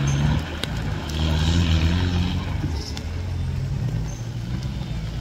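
Engine of an off-road 4x4 running under load in the mud, swelling louder about a second in and then easing back.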